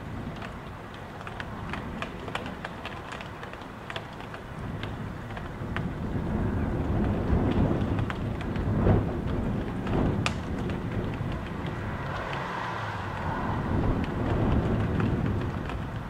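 Gusting wind and rain heard from inside a house. A low buffeting rumble of the wind swells through the middle and is loudest about nine seconds in, while raindrops make many sharp ticks.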